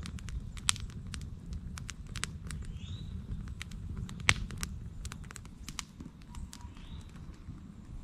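Wood campfire of split logs crackling with irregular sharp pops, two louder snaps standing out about a second in and just past four seconds.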